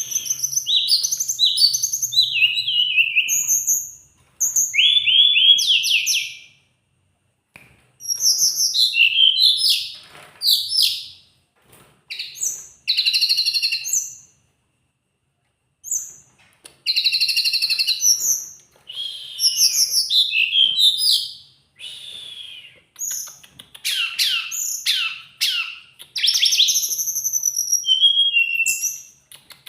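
A teledekan gunung songbird singing busily: one-to-four-second phrases of high, clear, rapidly changing whistled notes with quick rising and falling slurs, broken by short pauses.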